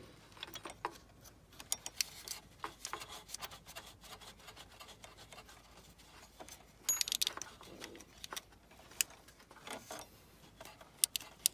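Light metallic clicks, taps and scrapes as a bolt is started and the belt tensioner bracket is handled in an engine bay, with a short burst of rattling about seven seconds in.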